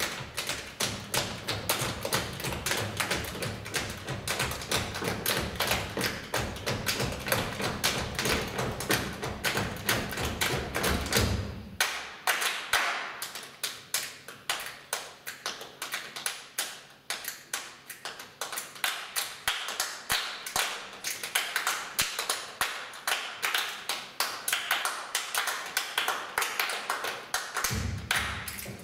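Body percussion by a seated group: a dense rhythm of hand slaps on chests and claps. About twelve seconds in, the deep chest thumps drop out and only lighter, crisper taps and claps keep the rhythm, until the heavy thumps come back near the end.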